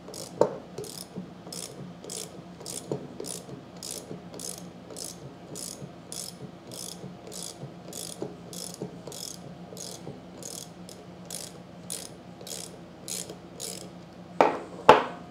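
Socket ratchet clicking steadily, about two clicks a second, as it backs out the 10 mm plunger retainer bolts of a pressure washer pump. Two louder knocks come close together near the end.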